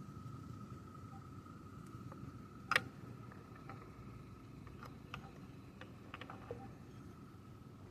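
Faint handling noises: one sharp click a little under three seconds in, then a scatter of lighter clicks and taps, over a low steady hum and a thin steady whine that fades out around the same time.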